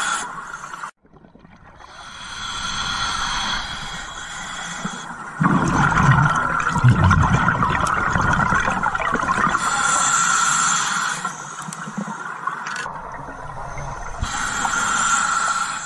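Scuba diver breathing through a regulator underwater: hissing inhales and a loud gurgling rush of exhaled bubbles about six seconds in, over a steady hum.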